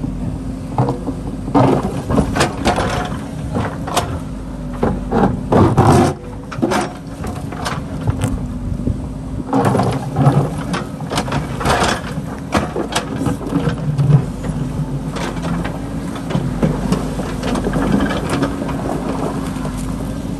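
JCB backhoe loader's diesel engine running steadily while the backhoe bucket scrapes and knocks against river stones and gravel, giving frequent clanks and clatters. The knocks come thickest from about two to six seconds in and again from about ten to fourteen seconds in.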